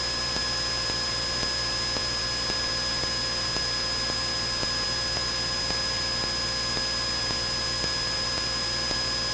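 Steady hiss of a light aircraft's headset intercom feed, with the Cessna 172N's engine and propeller drone faint and steady underneath and a few constant thin whining tones.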